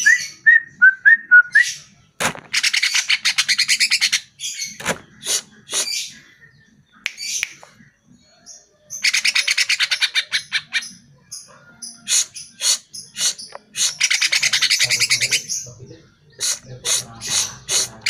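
Male greater green leafbird (cucak ijo) singing: a few short whistled notes at the start, then repeated bouts of fast, dense chattering trills, each one to two seconds long, broken by sharp single notes.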